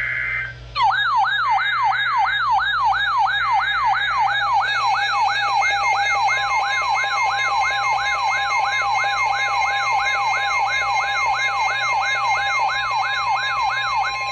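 Emergency Alert System tornado warning alert: a brief burst of header data screech, then a siren-like alert tone that sweeps down in pitch about two and a half times a second, with a steady tone joining it about six seconds in.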